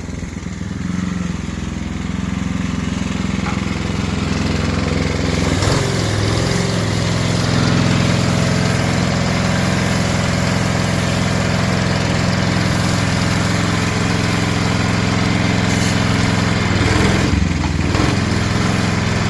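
Gas-engine pressure washer running steadily, with the hiss of the high-pressure spray growing about five seconds in.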